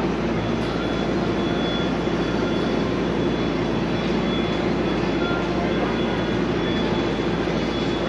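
Steady, unbroken roar of busy city street traffic.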